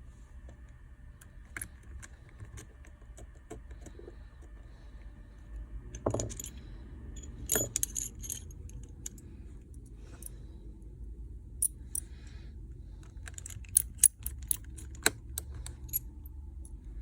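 Light metallic clicks and clinks of small repair tools and phone parts being handled, coming irregularly and loudest in a cluster near the end.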